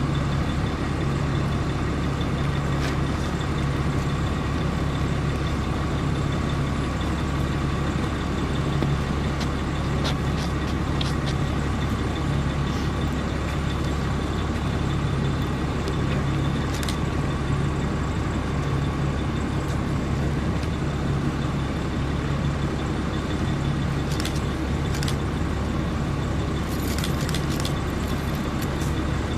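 Heavy vehicle engine idling steadily, with a low throb that swells and fades about once a second and a faint steady whine above it.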